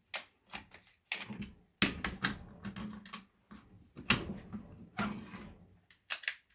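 Irregular clicks and knocks of hand tools working on a light ballast's casing as it is taken apart for scrap.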